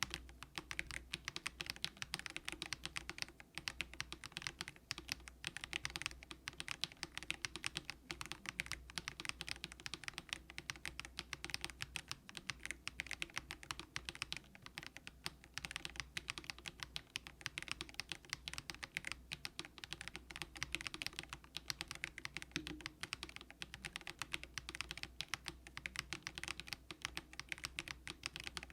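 Continuous fast typing on a plastic-cased Monstargear Ninja87 mechanical keyboard fitted with Haimu Sea Salt switches, which are light, low-force switches. A steady stream of keystroke clicks, many per second, with no pauses.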